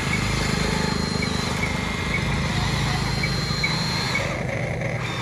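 Huina RC excavator's electric track drive whirring as it crawls over dirt, with a low rumble, a faint high whine that comes and goes, and light ticking about twice a second.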